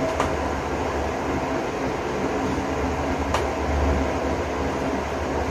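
Electric pedestal fan running with a steady whir and low hum, with two faint clicks, one just after the start and one about three seconds in.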